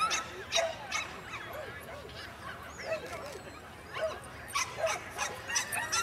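Dog barking and yipping in short, sharp barks repeated every half second or so.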